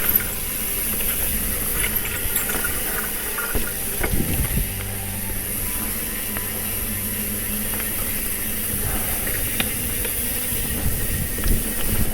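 Trek Fuel EX full-suspension mountain bike ridden over a dirt trail: a steady rushing noise of the ride on the camera's microphone, with knocks and rattles from bumps, heaviest about four seconds in and again near the end.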